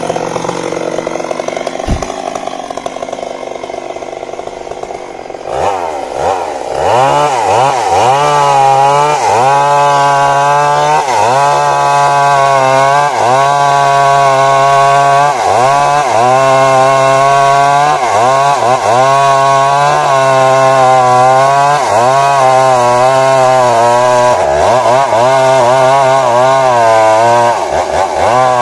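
Stihl MS 382 two-stroke chainsaw cutting wood under load. For the first five seconds or so it runs rougher; then it picks up to high revs, its pitch dipping and recovering about once a second as the chain bites into the cut.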